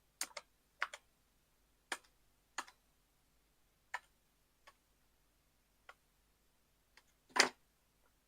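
Irregular light clicks and taps, about ten spread unevenly, with one louder, slightly longer tap near the end: paper-craft pieces and supplies being handled and pressed down on a work table.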